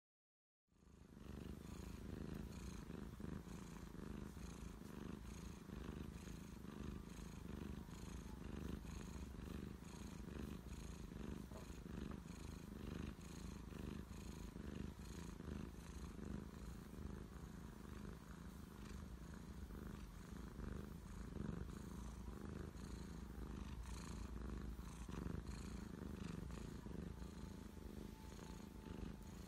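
Ginger tabby cat purring steadily and close up while its head is stroked, a contented purr. The purr starts about a second in.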